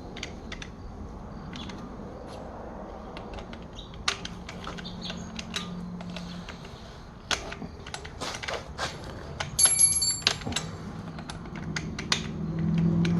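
Irregular metal clicks and taps from hand work on a valve in a Caterpillar C15 diesel cylinder head, with a brief ringing metallic clink about ten seconds in.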